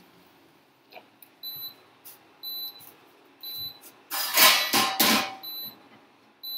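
Induction cooktop beeping, short high beeps about once a second, with the pan lifted off its empty cooking zone: the hob's no-pan warning. About four seconds in, a loud clatter and scrape of cookware lasting about a second.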